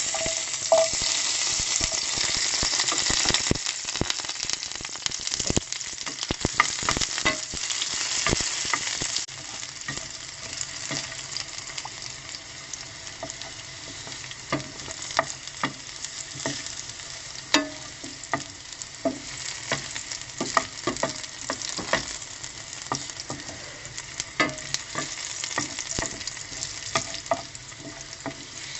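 Garlic stir-frying in a pan: a loud, dense sizzle that drops after about nine seconds to a softer, steady sizzle. Frequent sharp clicks and pops run through it.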